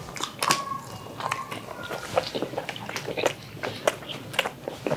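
Two people chewing and smacking their lips while eating curry and naan with their hands: a steady run of short, wet mouth clicks.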